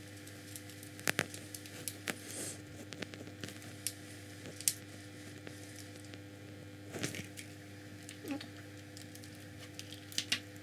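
Scattered small clicks and taps of an RC car's plastic gearbox parts and tools being handled while the differential is taken out, over a steady faint hum.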